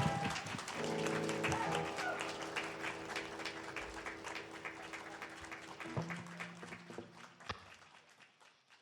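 Audience applauding after a rock song ends, over held electric guitar and amp tones that ring on and slowly fade. The clapping thins out and everything dies away about a second before the end.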